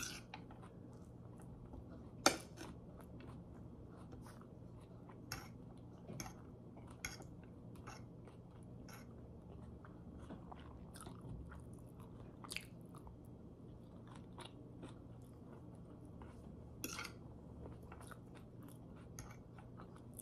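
A person chewing pad thai noodles close to the microphone, with short wet clicks and smacks at irregular intervals, the loudest about two seconds in, over a faint steady low hum.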